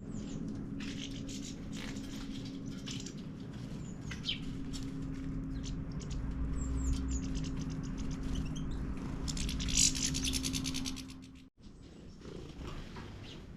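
Small birds chirping and calling in short, quick notes, with a fast rattling trill a little before ten seconds in, over a steady low hum. The sound breaks off suddenly near the end, then quieter chirps follow.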